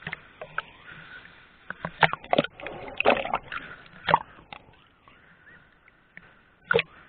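A dog snuffling and snorting in short bursts, among irregular sharp knocks and bumps.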